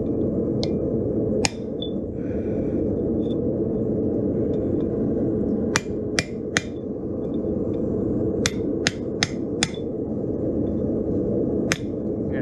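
Hammer blows on hot steel held against the corner of a 65 lb Vevor anvil: about ten sharp metallic strikes in small groups, two early, three about six seconds in, four about nine seconds in and one near the end. A steady low rushing noise runs underneath.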